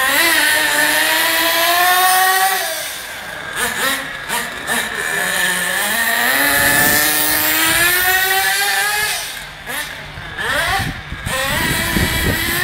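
Nitro glow engine of a radio-controlled buggy, a high-pitched buzz revving up and down in long glides as the car accelerates and slows, dropping to a low note around the middle and fading briefly about ten seconds in.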